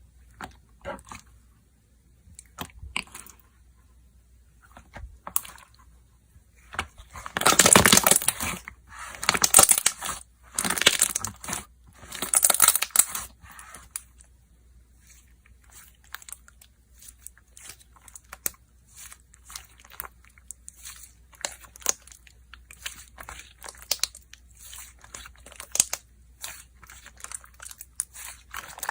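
Slime being played with by hand: scattered small clicks and crackles, with four louder crunching, crackling bursts between about 7 and 14 seconds in.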